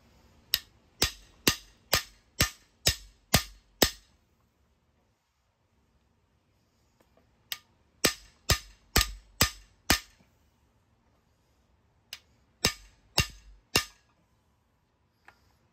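Hammer blows on the end of a cam bearing installer's driver bar, driving a cam bearing into its bore in a Ford 302 small-block. Three runs of sharp strikes, each ringing briefly, about two a second: eight, then six, then four, with pauses between.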